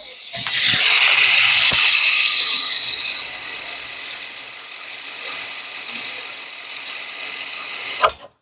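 Electric parking brake motor on a 2020 Infiniti QX50 rear caliper running its gear drive as a scan tool commands it to release and wind the piston back for a pad change. The sound is loudest over the first couple of seconds, runs on quieter, then stops abruptly near the end.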